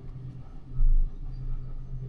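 A crane's engine running steadily, a low hum, with one brief, heavy low thump a little under a second in.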